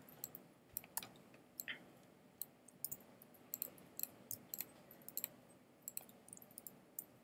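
Faint, irregular clicking of a computer mouse, two or three clicks a second, as objects are picked and moved in the 3D modelling program.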